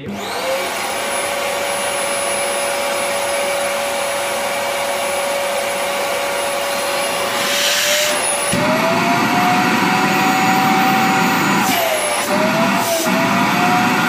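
Rowenta Compact Power Cyclonic vacuum cleaner switched on, spinning up quickly to a steady motor whine. About eight seconds in the pitch steps up, and it wavers briefly near the end. Its rear motor bearing has been freshly replaced, and it runs without the whistle it had before the repair.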